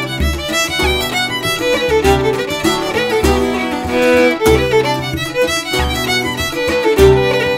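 An Irish reel played on fiddle, with a bouzouki strummed along and a bodhrán beating deep, regular thuds underneath. The fiddle carries a fast, lively melody.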